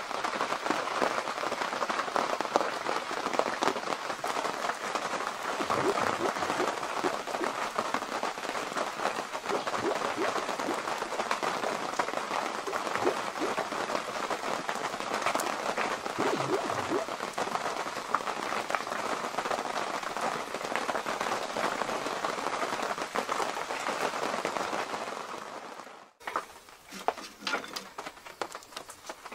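Heavy rain pattering steadily and hard on the canvas of a military Arctic tent, heard from inside. About 26 seconds in it cuts off abruptly, leaving a few light clicks and knocks.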